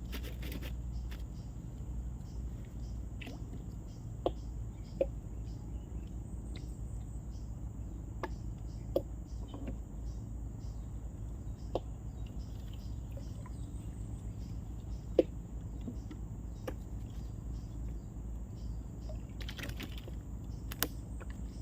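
Outdoor riverside background: a steady low rumble under a constant high insect drone, with scattered sharp clicks and taps from fishing gear being handled every second or two.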